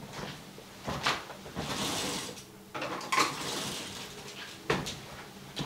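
Kitchen utensils clinking and rattling as a metal spatula is fetched from the counter, with a few sharp knocks.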